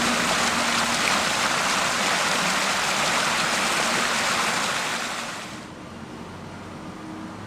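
Heavy thunderstorm rain, a dense hiss that drops suddenly about five and a half seconds in to a much quieter level.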